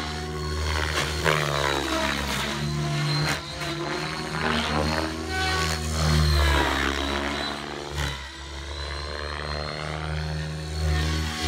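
Align T-Rex 700 DFC electric RC helicopter flying 3D aerobatics: rotor blades beating and a steady high whine, with the pitch sliding up and down and the loudness swelling and fading as it swoops past and through manoeuvres.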